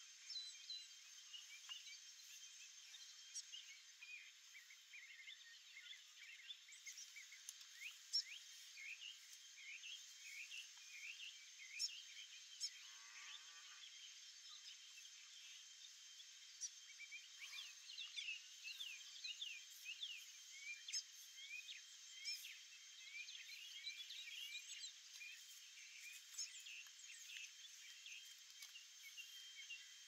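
Faint birdsong: many small birds chirping and whistling at once, short quick notes overlapping throughout, over a few steady high tones.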